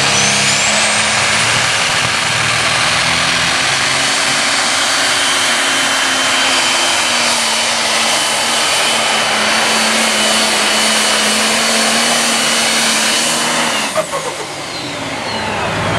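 Pro stock pulling tractor's turbocharged diesel engine running flat out under load as it drags the weight sled, with a high whine over the engine. About 14 seconds in the engine is suddenly cut and the whine falls away as the pull ends.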